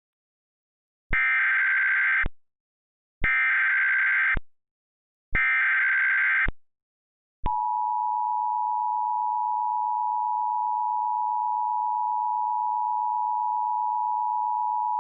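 Emergency Alert System tones: three short bursts of the SAME data header about two seconds apart, then, about halfway through, the steady two-tone EAS attention signal begins and holds.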